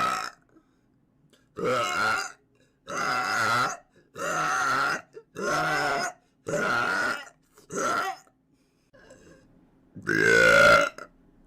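A woman burping repeatedly: the tail of one belch, then about seven short belches roughly one a second. The last one, near the end, is the loudest.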